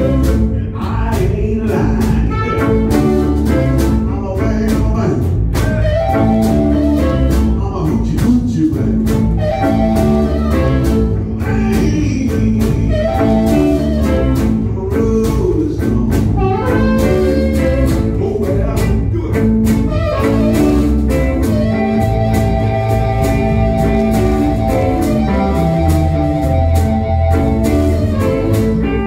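Blues band jamming: guitars with a blues harmonica playing held, bending notes, and a cajón keeping a steady beat.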